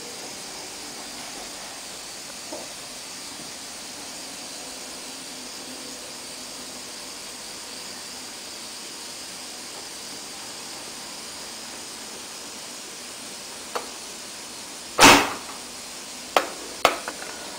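A pneumatic spear gun, charged to about 4 bar, firing once as its trigger lets go under a steady pull: one loud sharp bang about fifteen seconds in, followed by two small clicks.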